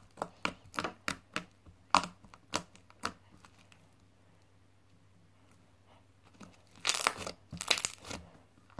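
Beaded slime being stretched and squeezed by hand: a quick run of small sharp clicks and pops for about three seconds, then after a lull two longer crackling, tearing sounds near the end.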